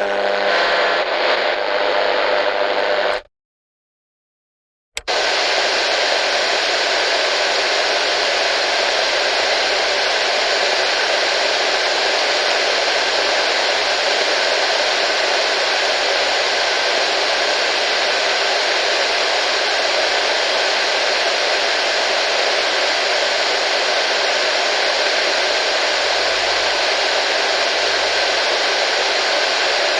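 Radio static: a burst of hiss with faint tones in it that cuts off after about three seconds, then after a short silence a steady, unbroken hiss of static.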